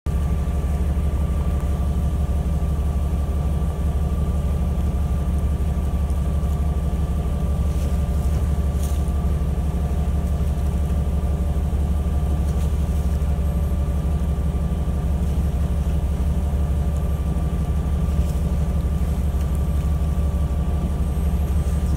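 A fishing boat's engine running steadily: a constant low drone with a thin, unchanging whine above it.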